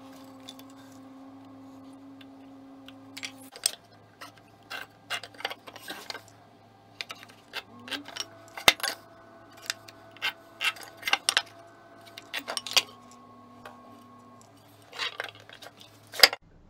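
Hand marking tools being handled on a wooden workbench: a steel tape measure and square clicking, tapping and clinking against oak boards and the bench top in a string of sharp, separate knocks.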